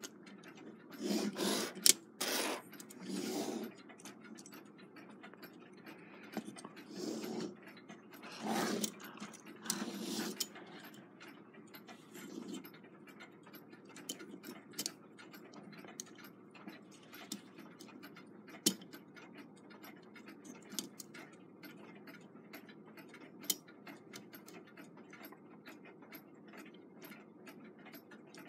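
Brass clock movement being reassembled by hand: scattered light metallic clicks and taps as the plate is worked down over the wheel pivots. There are a few louder rustling bursts in the first ten seconds.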